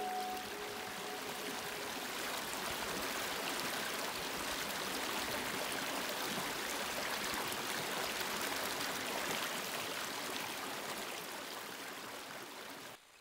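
Shallow, rocky brook running over stones and riffles: a steady rush of flowing water that eases slightly near the end.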